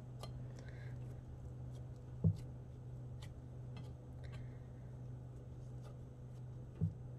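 Hands quietly pressing and patting scone dough flat in a cast iron pan: faint soft handling sounds over a low steady hum, with two dull knocks, one about two seconds in and one near the end.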